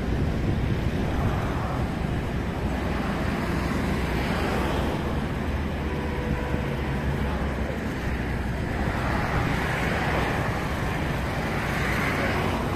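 Steady, distant jet roar of an Airbus A330-200 rolling out on the runway after landing. It has a deep rumble underneath and swells a little about a third of the way in and again near the end.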